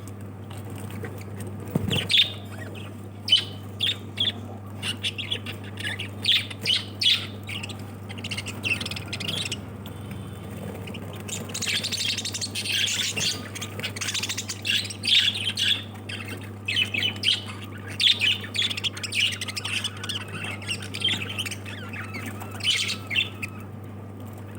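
Pet lovebirds calling: many short, high calls in quick succession, with a steady low hum underneath.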